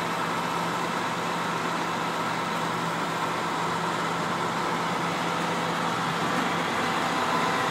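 Flatbed tow truck's engine idling steadily, an even unchanging hum.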